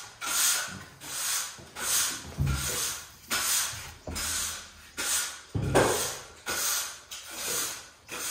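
Bristle brush or broom swishing in steady, regular strokes, about one and a half a second, as a keeper cleans the elephant nursery, with a few low thumps among them.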